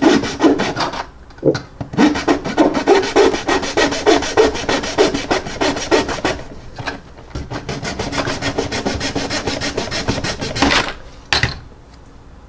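Fine-toothed razor saw cutting through a cast resin casting block: quick back-and-forth rasping strokes, with a short pause about halfway. The strokes stop a second or two before the end, when the block is cut free.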